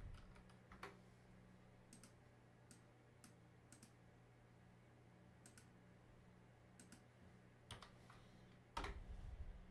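Faint, scattered computer mouse clicks and keyboard key presses, with a short run of keystrokes near the end, over a low steady hum.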